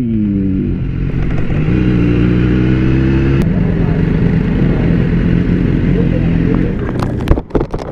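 BMW S1000RR's inline-four engine dropping in pitch as the bike slows, then idling steadily. A few sharp clatters near the end.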